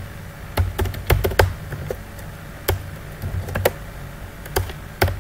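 Typing on a computer keyboard: separate keystroke clicks and taps at an uneven pace, about nine in five seconds.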